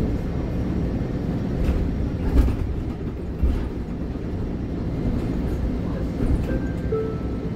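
The diesel engine of a MAN Lion's City Ü city bus idling at a stop: a steady low rumble, with two short knocks in the first half.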